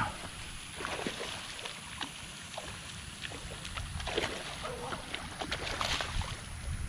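A hooked largemouth bass splashing and thrashing at the surface close to the bank, in a scatter of short splashes with the biggest near the end, over wind rumble on the microphone.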